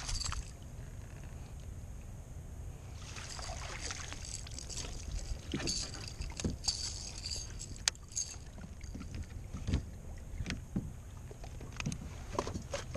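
Hooked redfish splashing at the surface beside a kayak, then a longer stretch of splashing and dripping water from about three seconds in as it is netted aboard, followed by scattered knocks and clicks of gear against the plastic kayak.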